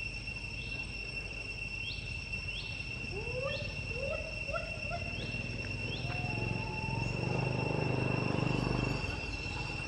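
Steady, high-pitched drone of insects. Around the middle comes a quick series of short rising calls from an unseen animal, and near the end a low rumble swells up and fades.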